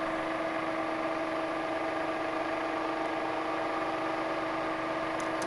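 Milling machine spindle motor, driven through a VFD, running steadily: an even hum with several unchanging tones.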